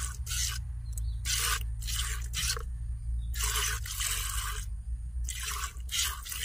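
Hand milking of a cow: jets of milk squirting from the teats into a plastic bucket, a short hissing spurt about twice a second, with one longer spurt about halfway through.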